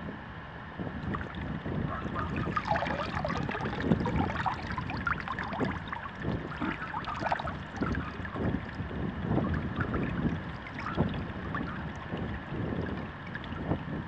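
Water sloshing and splashing in a plastic tub as a hand reaches in and lifts a submerged cordless reciprocating saw out, water streaming and dripping off the saw back into the tub.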